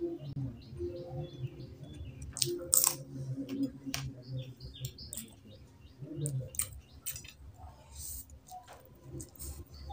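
Close-up eating by hand: fingers working soft rice and curry, then chewing with sharp wet mouth clicks and smacks, among them short high squeaks.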